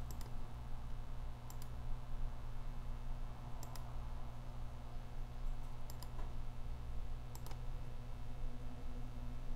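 Computer mouse button clicks, five pairs of quick clicks a second or two apart, over a steady low hum.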